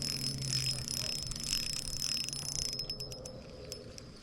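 A steady, high-pitched chorus of frogs calling. A low hum stops about a second in, and a few faint clicks come near the end.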